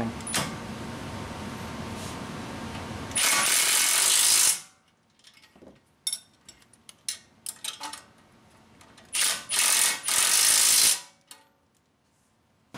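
Cordless impact wrench running the lock nuts onto the front strut's lower bolts, in two loud bursts of hammering, one about three seconds in and the other about nine seconds in, with light clicks of handling between them.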